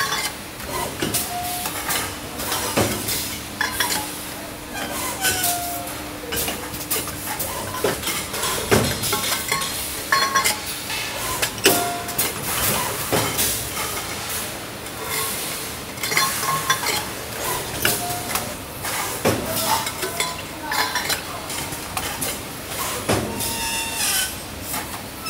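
Metal water-bottle bodies and parts clinking and knocking against each other and the press fixtures as they are handled, with many sharp knocks and short metallic rings through a busy factory background.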